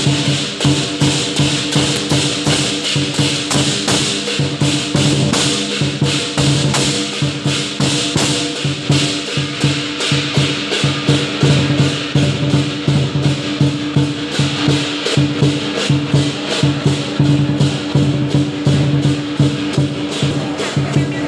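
Lion dance percussion: drum, cymbals and gong struck together in a fast, steady rhythm, with a low ringing tone held beneath the strikes.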